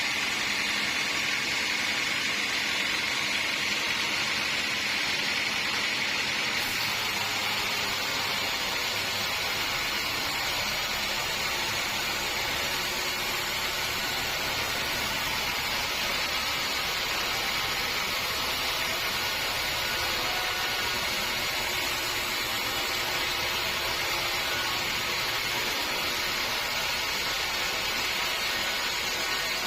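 Sawmill machinery running steadily, with a change in its sound about six and a half seconds in, when a low rumble joins.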